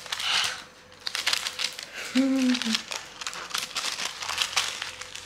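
Paper wrapping inside a gift box crinkling and rustling as it is pulled open by hand, with a brief hum from the person unwrapping it a little over two seconds in.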